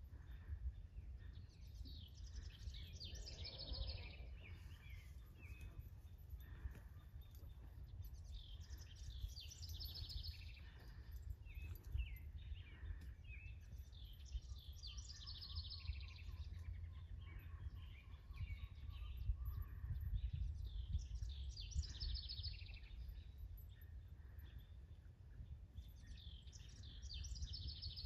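Songbird singing outdoors, a short chirping phrase repeated about every six seconds, over a steady low rumble of wind or distant background noise.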